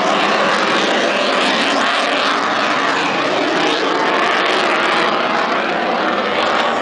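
F-22 Raptor's twin Pratt & Whitney F119 turbofan engines sounding a loud, steady jet noise as the fighter banks through a display pass.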